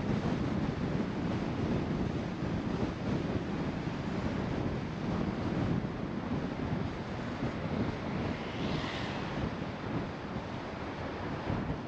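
Steady road and wind noise of a car being driven, a rumbling hiss with wind buffeting the microphone. A brief higher hiss swells and fades about nine seconds in.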